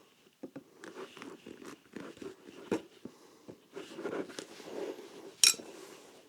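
Knife cutting and prying between a leather shoe sole and its midsole: irregular crunching and scraping strokes, with a sharp click about five and a half seconds in.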